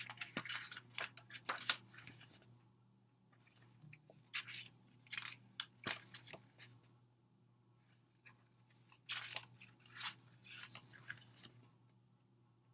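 Paper and card rustling and crinkling in short clusters of bursts as an album's pages and photo cards are handled and turned.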